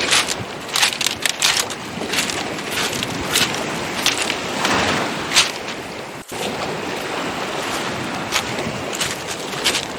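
Footsteps crunching on beach pebbles, sharp irregular crunches over a steady wash of waves and wind noise on the microphone. The sound drops out very briefly just past halfway.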